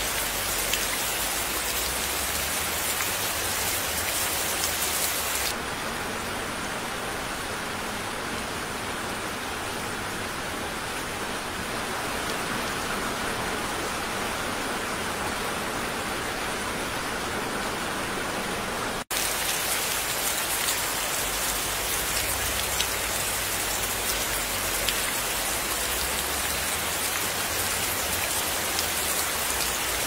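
Steady rain falling, an even hiss of rain with a fine patter of drops. The sound shifts slightly about five seconds in and drops out for an instant a little past the middle before carrying on.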